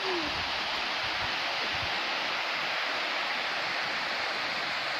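Water overflowing the curved concrete crest of a dam's ogee spillway and falling into the pool below: a steady, even rushing.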